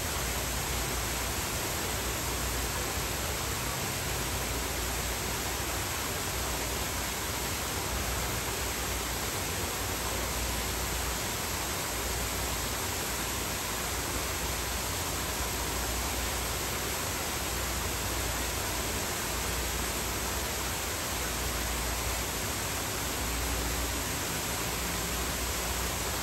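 A steady, unbroken hiss, even from low to very high pitch, with no animal calls or other events standing out.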